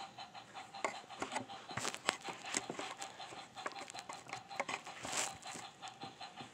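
Battery-powered TrackMaster toy engine running along plastic track: a faint steady motor hum with irregular clicks and rattles from the wheels and carriages.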